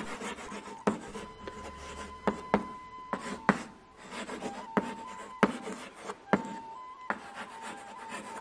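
Chalk writing on a chalkboard: irregular sharp taps as the chalk strikes the board, with scratchy strokes between them as letters are written.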